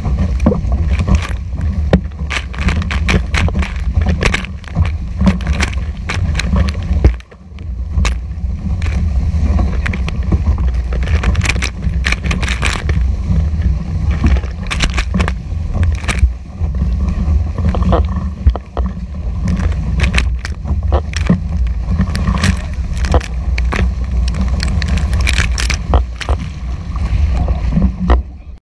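Whitewater rushing and spraying around an outrigger canoe surfing a wave, picked up by a camera mounted low on the hull: heavy wind rumble on the microphone and frequent sharp splashes of spray hitting it. The sound drops out briefly about seven seconds in.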